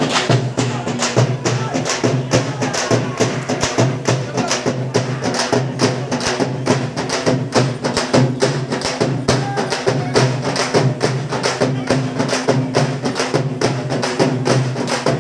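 Several large double-headed drums beaten with sticks in a fast, steady, driving rhythm.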